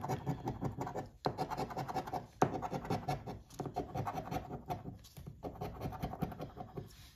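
A metal coin scraping the scratch-off coating from a paper lottery ticket in quick back-and-forth rasping strokes, with a few brief pauses between runs and one sharp tick about two and a half seconds in.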